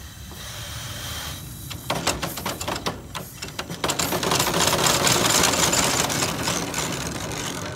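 1899 Locomobile steam carriage's two-cylinder steam engine running with the rear wheels jacked up off the ground, its chain drive and rear sprocket clattering in a rapid even rhythm. About four seconds in, a loud hiss of steam swells up over the clatter and eases slightly near the end.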